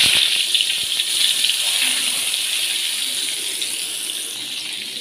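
Brinjal (eggplant) pieces hitting hot oil in a wok, which sizzles with a sudden loud hiss the moment they go in. The hiss eases slowly as they fry.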